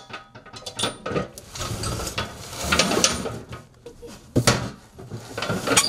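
Clattering, knocking and rustling as a large steel cooking pot, wooden boards and cloth and plastic sacks are shifted and poked with metal snake tongs, with a couple of sharp knocks near the end.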